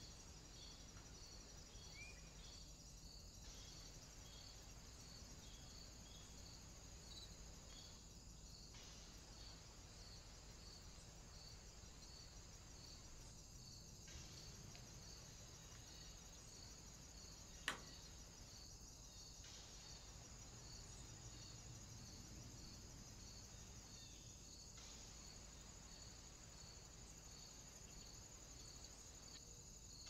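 Faint crickets chirping in a steady high pulse, about three chirps a second, over the hiss of a trail camera's microphone; a single sharp click about two-thirds of the way through.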